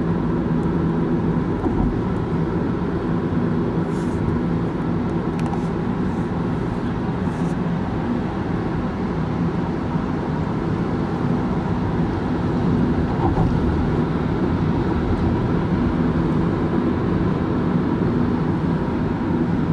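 A car's steady engine hum and road noise heard from inside the cabin while cruising on a motorway.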